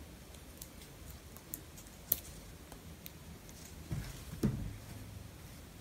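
Scissors snipping the ends of a strip of Rigilene plastic boning to round off its corners: a few small, sharp clicks. Then the scissors are set down on the ironing board with a couple of soft knocks about four seconds in.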